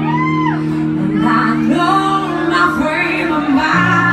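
Live band music with a woman singing lead over electric guitar and held low notes; the low notes drop to a lower pitch near the end.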